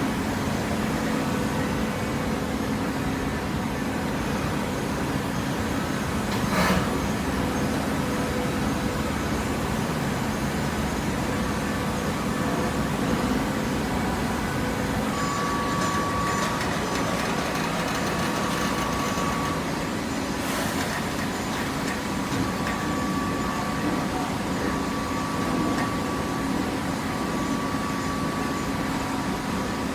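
Cardboard box baler's single-phase electric motor and hydraulic pump running with a steady hum; a higher steady whine comes in over the second half, and there are two sharp knocks, one in the first third and one about two-thirds through.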